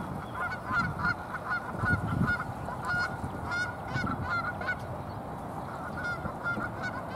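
A flock of birds honking: many short calls in quick, overlapping succession, over a low background rumble.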